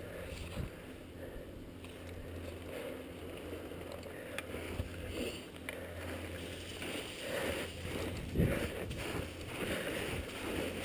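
Low rumble of wind and handling on a helmet-mounted action camera, with scattered crunches and scrapes of a skier's boots and skis moving in snow, busier in the second half.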